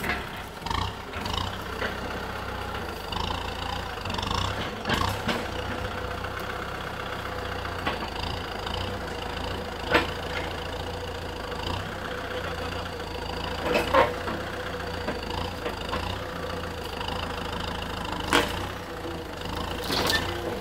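Kubota M6040SU tractor's diesel engine running steadily as its front blade pushes a heavy tree stump, with a few sharp knocks scattered through it.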